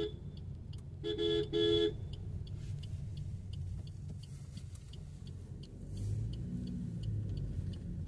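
Vehicle horn honking: a short beep right at the start, then two quick beeps about a second in. Under it runs the steady low rumble of engine and road noise inside a moving car, which swells a little near the end.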